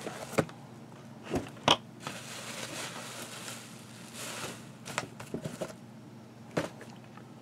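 Bubble wrap rustling and crinkling as it is pulled out of a cardboard shipping box. A few sharp taps and knocks come from the box and its contents being handled.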